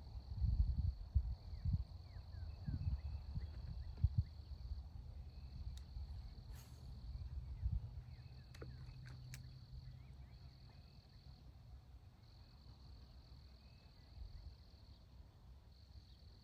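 Insect chorus trilling in one steady high band, broken by short gaps every second or two, over a low rumbling noise that is strongest in the first half. A few sharp clicks sound around the middle.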